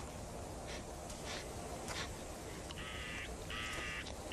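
Three harsh animal calls in quick succession, each about half a second long, starting about three seconds in.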